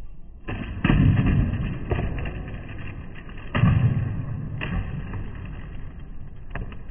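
Skateboard on a concrete skate park: a sharp pop and a heavy board landing about a second in, then the wheels rolling and rumbling. A second hard landing comes about three and a half seconds in, followed by more rolling and a few light clacks near the end.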